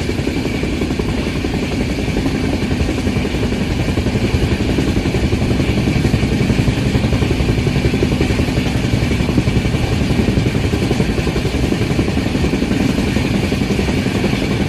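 Train running at high speed: a loud, steady rumble with a dense, fast clatter from the wheels on the rails.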